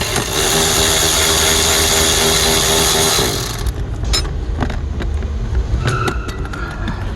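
Cordless power driver spinning for about three and a half seconds, backing out a glove-box Torx screw, then stopping; a few light clicks of the screw and bit being handled follow.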